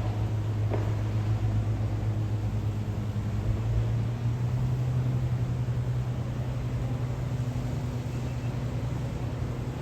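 Aircraft engines droning steadily overhead, a low hum that edges slightly higher in pitch about four seconds in.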